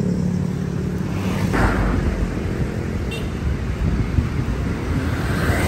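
Roadside traffic, with motor scooters and cars passing on the street and wind rumbling on the microphone. One engine hum fades away in the first second, and another vehicle swells past about a second and a half in.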